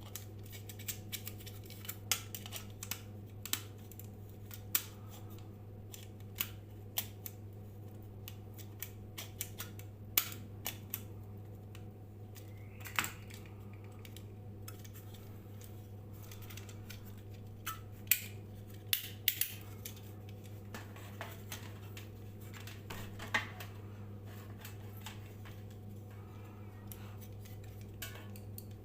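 A steady low electrical hum runs under irregular sharp clicks and snips of handwork.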